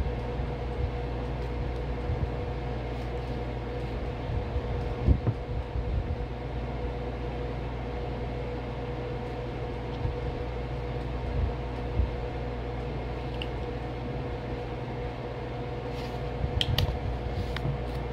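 Steady mechanical hum, with a few soft knocks and crunches as chunks of a cornstarch brick are broken off and dropped into a glass bowl, and a quick run of sharper crackles near the end.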